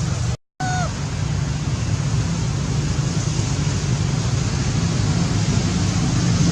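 Steady rumbling background noise. It cuts out to silence for a moment about half a second in, and is followed by a short, high chirp.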